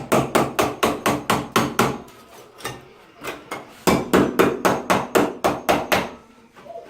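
Rapid hammering: two runs of quick, evenly spaced strikes, about five a second, with a pause of about two seconds between them.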